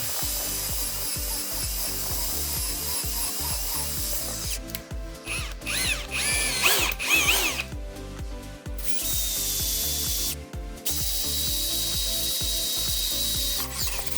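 Power tool cutting circlip (Seeger ring) grooves into a steel shaft. It gives a steady high hiss that breaks off for a few seconds in the middle, where there are wavering squeals, then resumes with a steady high whine.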